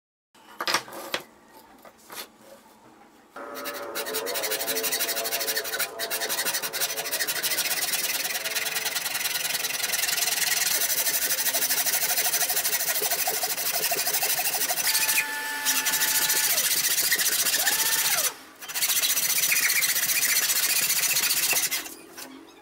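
A power tool's cutter, sticking up through a workbench, running and cutting a groove into the edge of a plywood piece. It starts about three seconds in after a few knocks, gives a steady, loud, hissing cut, and briefly drops out once near the end.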